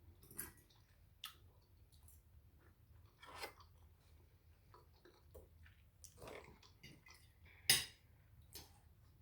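Eating a seafood boil: close chewing with scattered crunches and clicks of crab shell being picked apart, one sharper crack about three-quarters of the way in.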